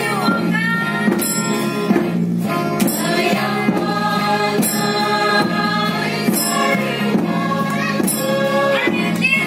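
A choir of women singing in unison through microphones and loudspeakers, over instrumental backing with a steady beat.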